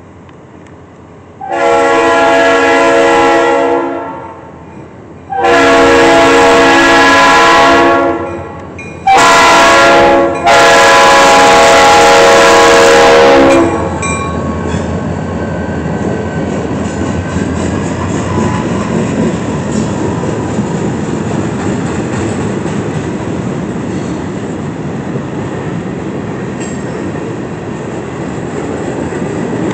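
Freight train's locomotive air horn sounding the grade-crossing signal, several notes together in long, long, short, long blasts. Then the train rolls past with a steady rumble and the wheels clicking over the rail joints.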